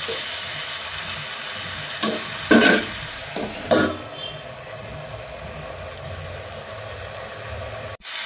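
Diced potato, onion and tomato sizzling in an iron kadhai, stirred with a metal spatula. A steel plate is set over the pan as a lid with two sharp metal clanks about two and a half and nearly four seconds in, after which the sizzle is quieter, and the sound cuts off abruptly near the end.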